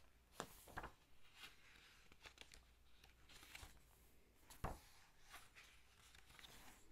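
Faint rustling and handling of paper: book pages and printed sheets being shifted, with a few soft taps, the sharpest a little under five seconds in.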